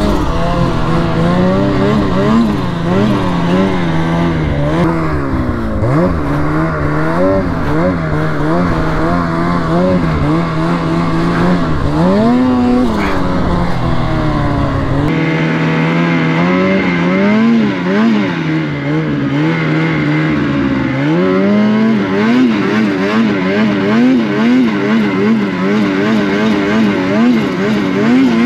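Ski-Doo Freeride snowmobile's two-stroke engine revving up and down again and again as the throttle is worked, its pitch rising and falling every second or so. A low rumble runs under it for the first half and stops abruptly about halfway through.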